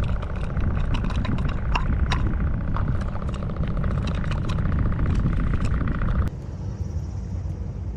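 Wind buffeting an outdoor microphone with a steady low rumble, over a fast, fine ticking and scattered clicks that cut off abruptly about six seconds in, leaving the rumble alone.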